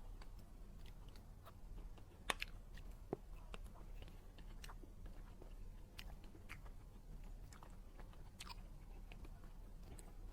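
Close-miked eating sounds: soft chewing of a dessert, with scattered wet mouth clicks and smacks over a faint low hum. The sharpest click comes a little over two seconds in.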